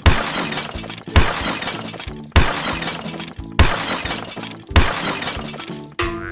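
Intro music with a loud crashing hit repeated about every second and a quarter, each one ringing out over the melody; near the end it gives way to a lighter tune.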